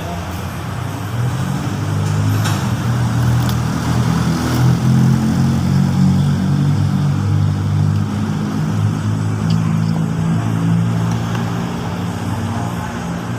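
A motor vehicle engine running nearby with a steady low hum, growing louder over the first few seconds and then slowly fading.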